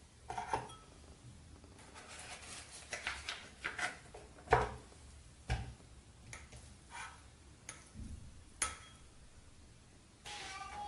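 Ceramic bowl set on a bamboo kitchen scale, then butter dropped into it and handled, making a series of light knocks, clinks and short rustles; the sharpest knock is about four and a half seconds in.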